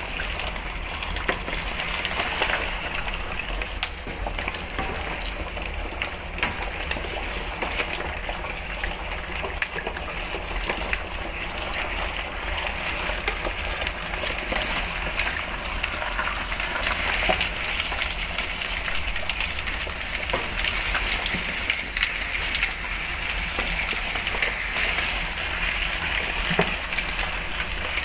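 Frozen bitter gourd slices with onion and green chillies sizzling in hot oil in a pan: a steady hiss full of small crackles and pops.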